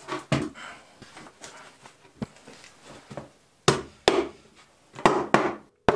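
Handmade wooden table being shifted, giving a series of sharp wooden knocks: a few faint ones early, then five louder ones in the second half.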